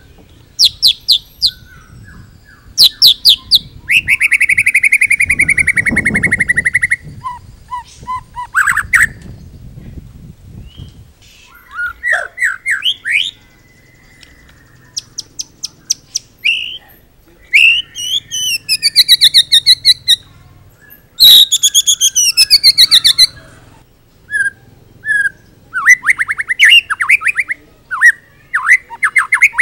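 White-rumped shama singing a varied, loud song: rapid stuttering trills, whistled sweeps that rise and fall, and a long buzzy trill, in phrases split by short pauses. The song is packed with borrowed phrases (isian), the kind kept as a tutor song for training other shamas.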